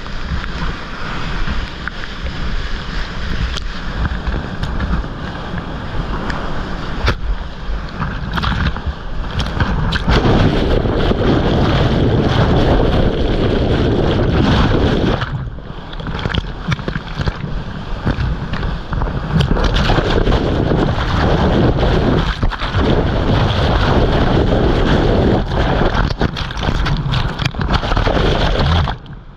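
Churning whitewater of a flooded river in a hole, washing right over the microphone: a loud, steady rush of water. It grows louder about a third of the way in, eases briefly around the middle, then surges again.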